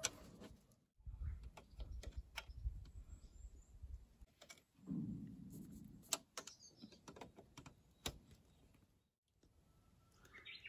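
Faint, scattered small metallic clicks and ticks as needle-nose pliers spread and bend the legs of a steel split pin in a centre stand's pivot shaft, with low handling rumble between them.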